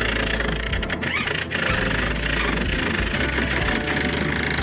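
Wood lathe spinning a coconut-wood blank while a hand-held turning tool cuts into it: a steady, rough cutting and shearing noise over the running lathe motor.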